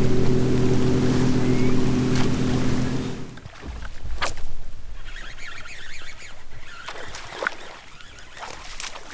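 Electric trolling motor on the bow of a bass boat humming steadily, cutting off a little over three seconds in. After that come a few sharp clicks and lighter handling noise from the casting rod and reel as the lure is cast and retrieved.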